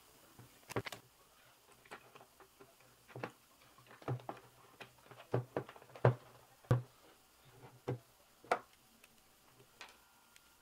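Irregular clicks and light taps of plastic trim pieces, screws and a screwdriver being handled as parts are fitted onto a steering wheel, the loudest about six seconds in.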